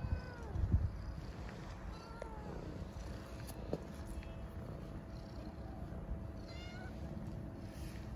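Tabby kittens meowing a few times, short calls about two seconds in and near seven seconds among them, while a hand pets them. Just under a second in a low rumble sounds close to the microphone.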